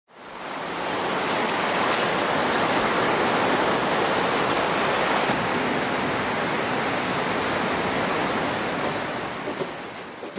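Steady rush of surf washing on a beach. It fades in over the first second and fades away over the last couple of seconds.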